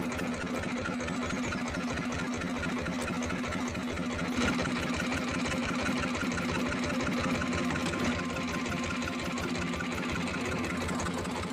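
Small fishing boat's engine running steadily at idle, a rapid even chugging.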